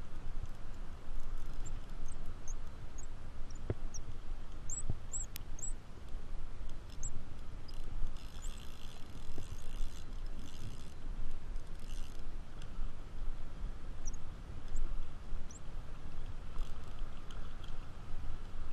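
Wind buffeting an outdoor action-camera microphone, a gusty low rumble that rises and falls, with faint short high chirps scattered through it.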